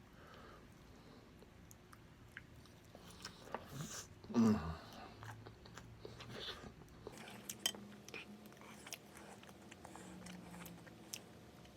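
Close-miked eating sounds of a person chewing and biting spicy pork adobo: soft wet mouth clicks throughout, with one louder sound about four seconds in.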